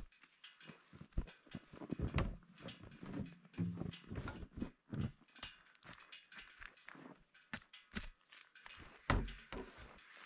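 Irregular crunching, knocking and clattering of gear being unloaded in deep snow: skis pulled off a sled and knocked about, then two plastic jerrycans lifted and bumped, with boots crunching through the snow and a few heavier thumps.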